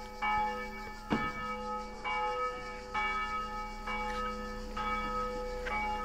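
Church bell tolling, struck about once a second, each stroke ringing on until the next.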